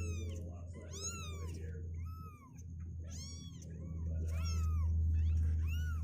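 Two-week-old kittens mewing repeatedly, high cries that rise and fall, roughly once a second and sometimes overlapping, over a low steady hum.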